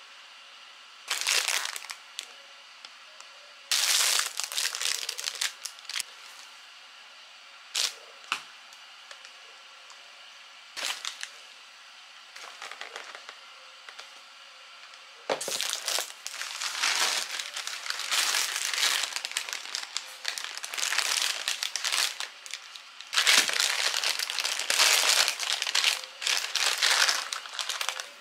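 Plastic food packaging crinkling and rustling as grocery items are handled, in short separate bursts at first, then in longer, denser runs through the second half.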